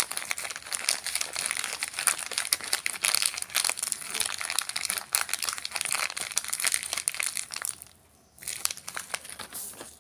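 A packet of Rizla filter tips being crinkled and handled: a continuous dense crackle of many small clicks that pauses briefly about eight seconds in, resumes, and stops just before the end.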